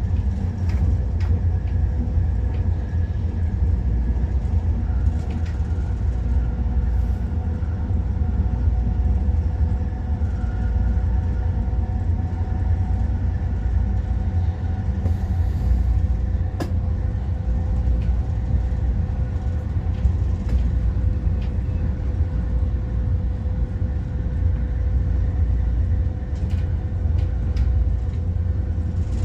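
MTR Airport Express train running at steady speed, heard from inside the carriage: a continuous low rumble from the wheels and track, with a steady whine from the traction motors.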